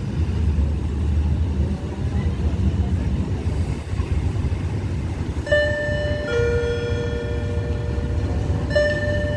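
Diesel railcar pulling into the station with a low engine rumble. About halfway through, its two-tone horn sounds, a higher note followed by a lower note, then the higher note again near the end.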